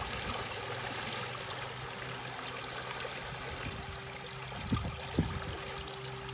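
Water rushing and splashing along the hull of a sailing trimaran under way, over a low steady hum. Two sharp knocks about half a second apart near the end are the loudest sounds.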